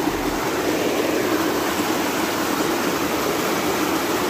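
Shallow mountain stream rushing steadily over rocks and small cascades.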